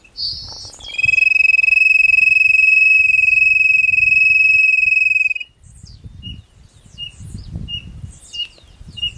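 Wooden quail call (pio) blown in one long, steady whistle for about four seconds, after a short chirp. Then a string of short, even peeps follows, about two a second.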